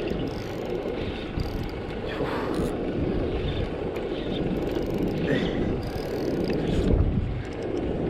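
Steady low rumble of a small fishing boat under way, with wind buffeting the microphone.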